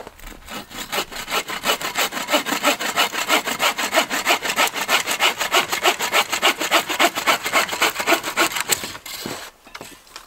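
Bow saw cutting through a dry, dead tree trunk in quick, even push-and-pull strokes. The sawing stops about nine seconds in.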